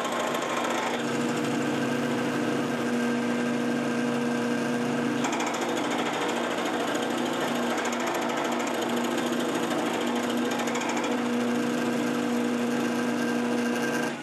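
Milling machine running with a milling cutter skimming the sawn faces of a metal part clean: a steady machining hum at a constant pitch with cutting noise over it.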